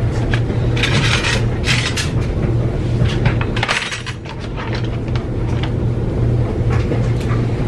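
Kitchen utensils clinking and rattling as they are handled and sorted into a drawer, in several short clatters over a steady low hum.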